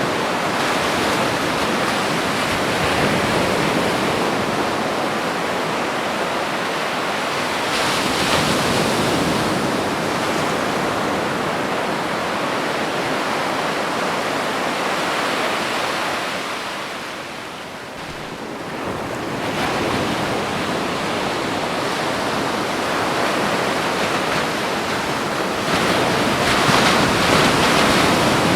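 Ocean surf washing onto a beach, a continuous rush of water. Waves break more strongly about 8 seconds in and near the end, and the wash dips briefly around the middle.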